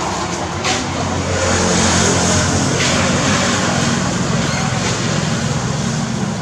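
A steady engine or motor drone with a low hum that shifts a little higher about a second and a half in.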